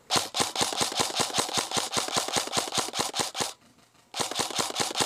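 Airsoft M4 rifle firing on full auto, a fast even rattle of about twelve shots a second: one long burst of about three and a half seconds, a brief pause, then a second burst.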